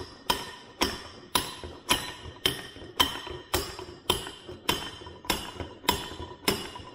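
Hammer blows driving a gear back into place on a Muncie four-speed transmission shaft through a tube or driver slipped over it: a steady series of about a dozen strikes, roughly two a second, each with a metallic ring.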